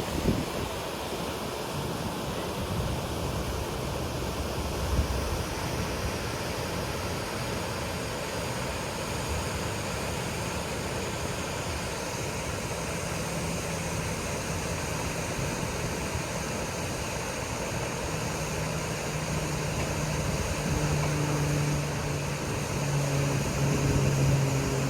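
Waterfall rushing steadily. About halfway through, a motor's low hum comes in and grows louder toward the end.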